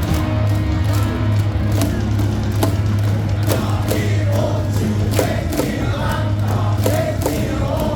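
Baseball stadium crowd chanting and singing a team cheer song along with loud music over the stadium loudspeakers, with a steady deep bass and sharp beats struck along with it.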